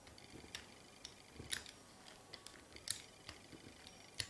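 Fluted pastry wheel cutting slits in squares of puff pastry laid on baking paper: faint, scattered sharp ticks and light scrapes as the wheel presses through the dough.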